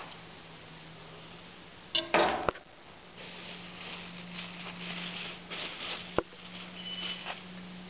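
Hand filleting of fish on a cleaning table: a brief clattering knock about two seconds in, then several seconds of knife scraping and cutting with a sharp click near six seconds in, over a steady low hum.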